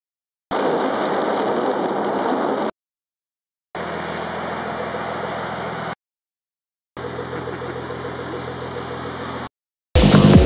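Nissan Skyline R33 GTS-T's RB25DET turbocharged straight-six running steadily, probably at idle, heard as three separate clips of about two seconds each that cut in and out abruptly with a second of dead silence between; the first clip is louder than the other two. Electronic music comes in abruptly at the very end.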